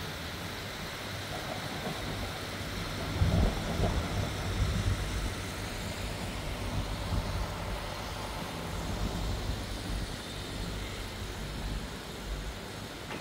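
Outdoor street ambience: a steady low rumble, louder for a few moments about three to five seconds in.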